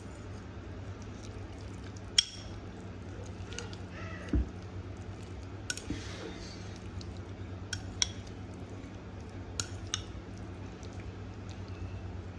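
Kitchen utensils clinking and knocking against dishes and cookware, about a dozen scattered sharp clicks with one dull thump about four seconds in, over a steady low hum.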